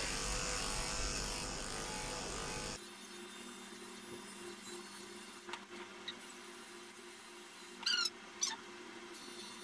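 Electric pet grooming clippers buzzing through a shih tzu's coat, cutting off abruptly about three seconds in. A low steady hum follows, and near the end the dog gives two short, high whimpers.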